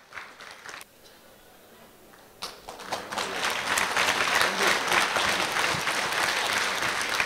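After a short quiet pause, an audience breaks into applause about two and a half seconds in, then keeps clapping steadily.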